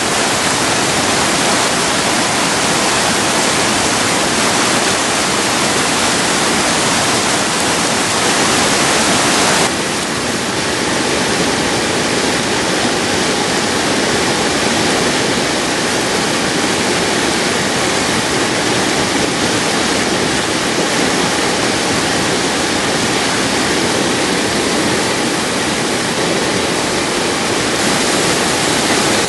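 Whitewater rapids rushing over rocks: a loud, steady rush of water. The sound shifts slightly in tone about ten seconds in and again near the end.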